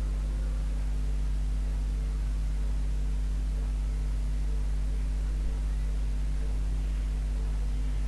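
A steady low electrical hum with an even background hiss.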